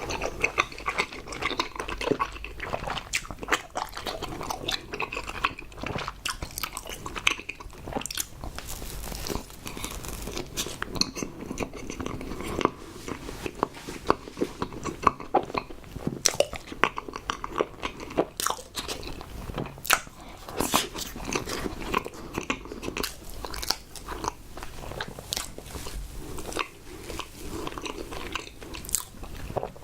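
Close-miked eating: a person biting and chewing food, with many small irregular clicks and mouth sounds.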